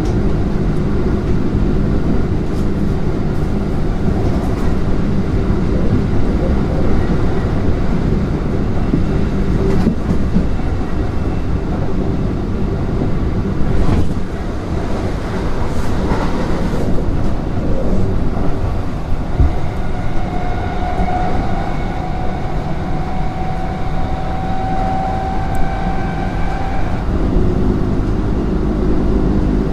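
Kintetsu 3200 series electric train running, heard from inside the car: a steady heavy rumble of wheels on rail. A thin whine comes in past the middle, rising slightly in pitch for several seconds before fading.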